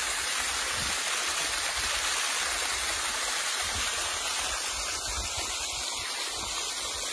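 Small waterfall spilling over rocks: a steady rush of falling water.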